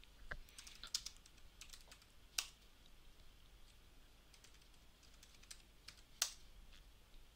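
Typing on a computer keyboard: scattered, fairly quiet key clicks, with a burst of quick keystrokes about four and a half to six seconds in and two louder single keystrokes, one about two and a half seconds in and one near the end.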